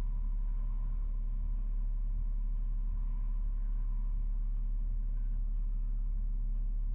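Steady low rumble of a car driving along the road, picked up by a dash cam inside the vehicle.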